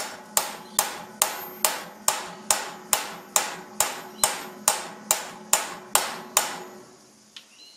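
A hammer tapping steadily on metal, about sixteen even strikes a little over two a second, each with a short metallic ring, stopping about six and a half seconds in. It is driving a new slip ring down onto a Ford Falcon alternator's rotor shaft until it bottoms out.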